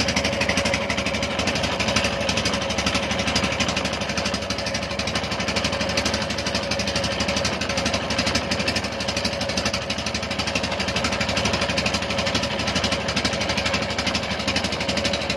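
Engine of a pompong, a small wooden motorboat, running steadily under way with a fast, even chugging beat.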